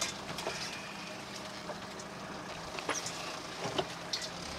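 Suzuki 4x4's engine running steadily as it drives through mud and water, with scattered short splashes and knocks.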